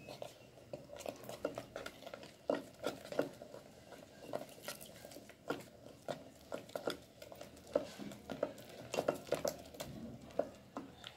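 Wooden spatula stirring a thick, sticky amla and sugar mixture in a steel pot, with irregular clicks and scrapes against the pot's sides as cornflour slurry is mixed in.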